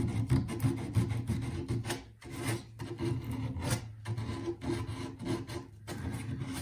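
Sandpaper rubbing around the cut end of a PVC drain pipe, in repeated scraping strokes about two a second with a brief pause about two seconds in, smoothing off the burrs left by the saw.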